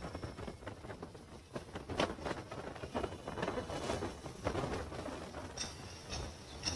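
Storm wind and heavy rain rushing over a phone microphone, with irregular pattering and scattered knocks.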